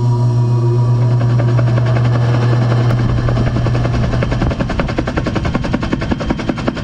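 Helicopter sound effect: a steady low engine hum under fast rotor-blade chopping that comes in about a second in, the hum dropping away after about four and a half seconds while the chopping goes on.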